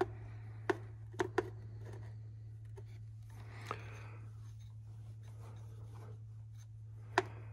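Hand-working a small injector fuel-line fitting on an Allis-Chalmers 7045 engine: light rubbing with a few sharp metallic clicks, three close together in the first second and a half and one near the end, over a low steady hum.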